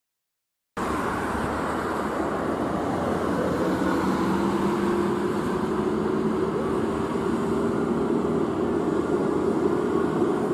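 Hino 500 truck's diesel engine pulling away at low speed, its drone rising slowly in pitch as it gathers speed. The sound cuts in suddenly about a second in, after silence.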